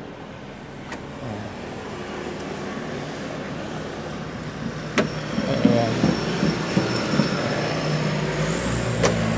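Plastic clips of a screwless Samsung LED TV's rear cover snapping loose as its edge is pried open, three sharp clicks about four seconds apart, over steady background traffic noise.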